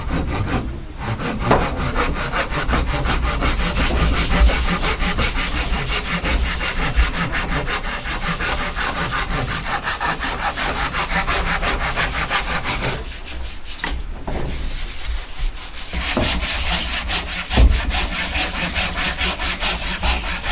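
A saw cutting through wood in rapid, regular strokes, stopping about two-thirds of the way through and starting again a few seconds later.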